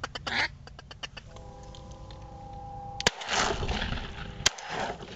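Two shotgun shots during a duck hunt, about a second and a half apart, each a sharp crack followed by a loud noisy tail. Before them come a few clicks and a steady held tone lasting under two seconds.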